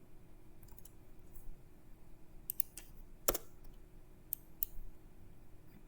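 Scattered sharp clicks from a computer mouse and keyboard in use, spaced unevenly, with one louder click about three seconds in, over a faint steady hum.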